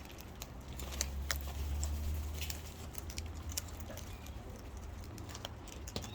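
Scattered light clicks and taps of birds pecking and shuffling at food, irregular, over a low rumble.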